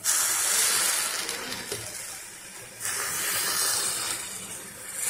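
Milk poured into a hot steel pan of grated carrots frying in ghee, hissing and sizzling as it hits the hot fat. The hiss comes in two surges, one at the start and one about three seconds in, each starting suddenly and fading.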